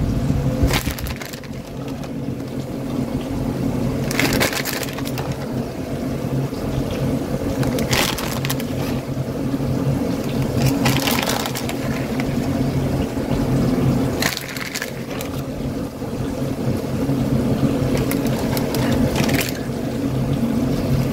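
Plastic bag of grated cheese crinkling several times at irregular moments as handfuls are pulled out and scattered over a tray of potatoes. A steady low hum runs underneath.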